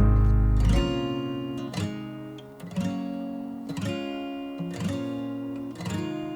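Background music: acoustic guitar strumming chords about once a second, with a deep low note that stops under a second in and an overall gentle fade.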